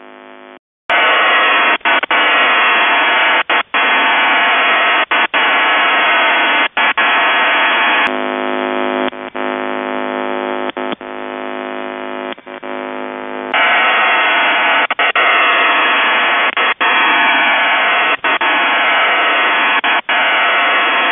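Shortwave receiver audio of Russian military HF data signals: the dense, hissing noise of a CIS-12 data modem, held to a narrow radio audio band and broken by several brief dropouts. In the middle, for about five seconds, the noise gives way to a steady buzz of several tones at once.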